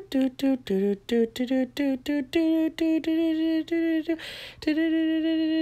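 A woman humming a wordless tune in short "doo"-like notes, about three or four a second, that step up and down and then settle on one pitch. About four seconds in she takes a quick breath and holds a single long note.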